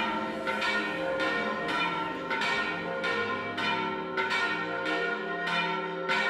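Church bells being rung by hand in a steady pattern of about two strokes a second, each stroke ringing on into the next.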